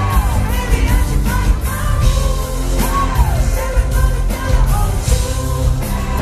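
Live pop-rock band performing: a male lead singer over electric and acoustic guitars, with a heavy bass and beat. It is loud and recorded from within the audience.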